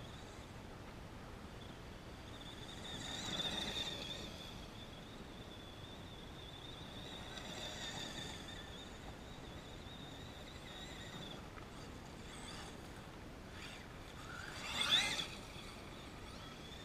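Electric RC monster truck with a Mamba brushless motor, running across loose dirt at a distance. It swells past a few times, and about fifteen seconds in its motor whine rises sharply in pitch, the loudest moment.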